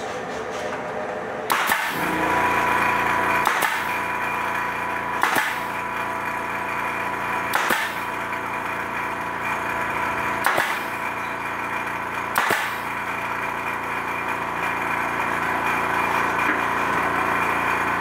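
Pneumatic nailer fired six times, a sharp shot every two to three seconds, driving nails into a wall panel. A steady running hum from the air compressor feeding it sits behind the shots, starting with the first one.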